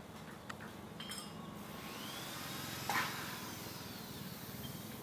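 A few light clinks and one sharper knock about three seconds in, over a steady low hum.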